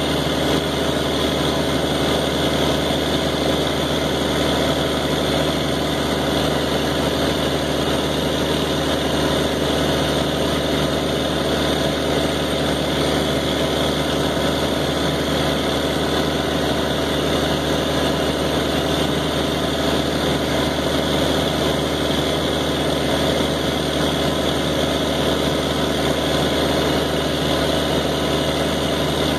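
Engine driving a pump, running steadily at about half throttle under automatic throttle control, loaded against outlet pressure held just under its target. The sound is one even drone with no changes in speed.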